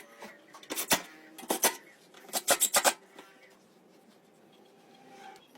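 Workshop handling noises: sharp clicks and knocks of parts and tools being handled on the restored generator, in three short clusters about one, one and a half, and two and a half seconds in.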